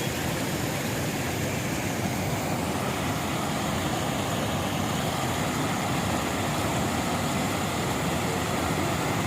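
Rainwater runoff rushing steadily, an even noise without breaks.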